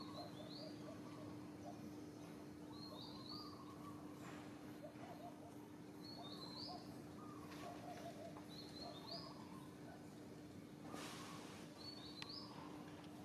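A bird calling again and again outdoors: a short, high, rising call about every two and a half seconds, five times, with fainter lower chirping between and a low steady hum underneath.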